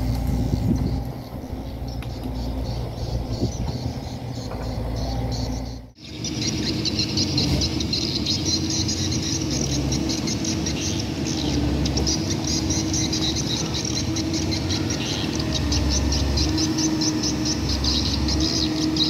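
Lonking CDM6085 mini excavator's diesel engine running while it works, with a cut about six seconds in. After the cut a high, rapidly pulsing chirr sits over the steady engine hum.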